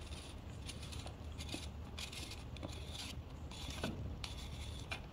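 Faint scraping and rubbing with a few light clicks as a carbon-fibre air rifle shroud is twisted and worked open by hand.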